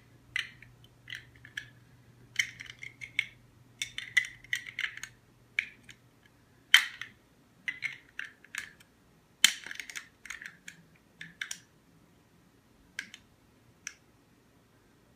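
Plastic Lego pieces being handled: irregular small clicks and clattering as bricks and figures knock together, with a few sharper knocks and a sparser tail of clicks near the end.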